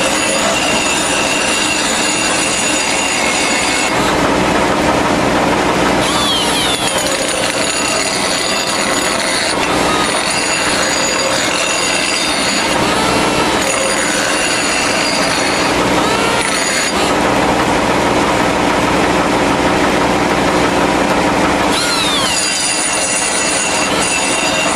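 Air (pneumatic) die grinder running at high speed with a grinding stone sharpening the edge of a steel mower blade: a loud, steady high whine mixed with grinding hiss. Its tone changes a few times, with brief falling pitch glides now and then.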